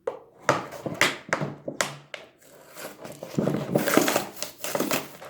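A cardboard toy box with plastic packaging being handled and pried at to get it open: crinkling and crushing of the packaging with a series of sharp clicks and scrapes, busiest in the second half.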